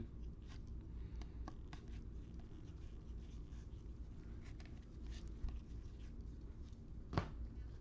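Faint handling of trading cards: soft scrapes and light ticks as cards are slid and flipped through, with one sharper click about seven seconds in.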